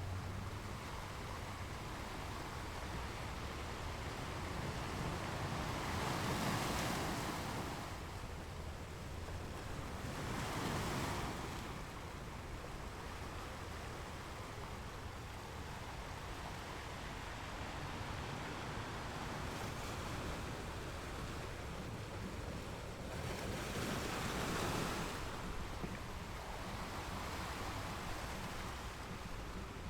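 Ocean surf washing onto a beach: a steady rushing hiss over a low rumble, with three louder waves breaking and washing in, about a fifth of the way in, a third of the way in and near the end.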